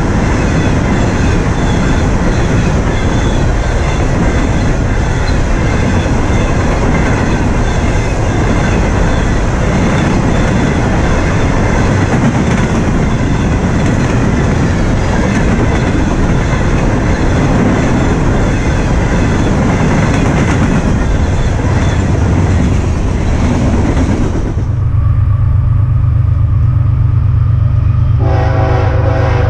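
Freight train of empty flatcars rolling past, steel wheels clattering and rumbling on the rails. About 25 s in, the sound cuts to the low rumble of an approaching BNSF diesel locomotive, which blows its horn near the end.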